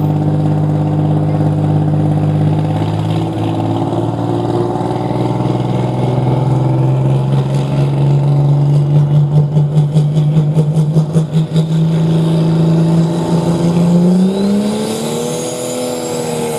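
Turbocharged diesel engine of a John Deere Super Stock pulling tractor running steadily at the line, with a pulsing wobble of about four beats a second in the middle. Near the end it revs up, with a rising turbo whine, as the tractor readies to launch.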